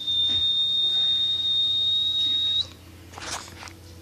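A steady, single high-pitched tone, held evenly and then cut off about two and a half seconds in with a slight upward flick at the end. A short noise follows about three seconds in.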